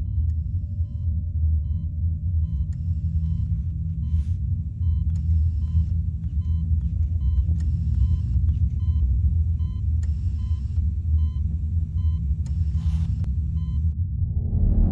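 Operating-room patient monitor beeping evenly about once a second, over a loud, steady low rumble.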